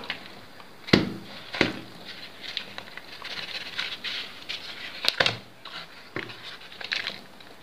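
A piece of paper egg tray covered in mealworm beetles rustling as it is shaken and knocked over a wooden tray of wheat-bran bedding to drop the beetles off. There are several sharp taps, the loudest about a second in and about five seconds in.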